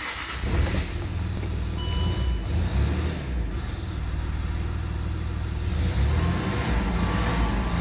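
Land Rover Discovery 3's 2.7-litre 276DT V6 turbodiesel, just started and idling steadily, heard from inside the cabin.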